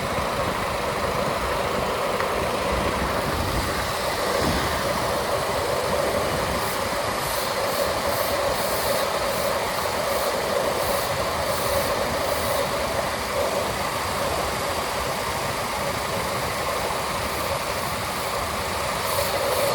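Car engine idling with the air conditioning running while the system is being charged with refrigerant: a steady drone, with a few brief faint high hisses partway through.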